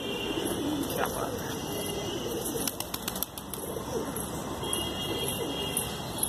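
Domestic pigeons cooing, a run of low repeated coos, with a few short clicks about three seconds in.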